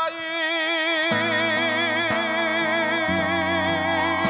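Closing bars of a live gospel song: a singer holds one long final note with vibrato. Strummed acoustic guitar chords come in about a second in, struck roughly every half second, and the chord changes about three seconds in.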